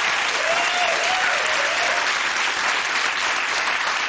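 Studio audience applauding steadily, with a voice calling out over the clapping in the first couple of seconds.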